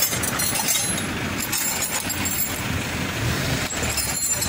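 Steady low rumble of a heavy vehicle's engine running, with a few faint clinks.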